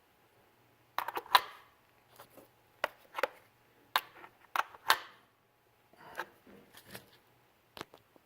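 Irregular metallic clicks and clinks of a wrench and hand tools working at the engine's PCV valve, some in quick clusters, with no steady ratcheting rhythm.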